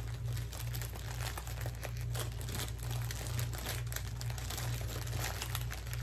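A clear plastic bag and the small plastic packets of diamond-painting drills inside it crinkling and rustling as hands dig through them, with a continuous irregular crackle. A low steady hum sits underneath.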